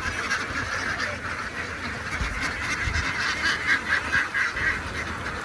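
A large flock of domestic ducks quacking, many calls overlapping into a continuous din, with a louder run of calls a little past halfway.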